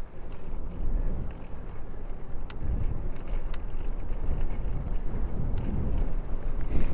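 Riding noise from a bicycle-mounted camera: steady low wind rumble on the microphone from the riding airflow, with tyre and road noise and a few sharp clicks from the bike.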